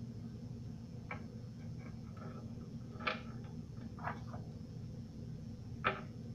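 Dry herbs being crumbled between the palms over a raw chicken: a few short crackling rustles, the loudest about three and six seconds in, over a steady low hum.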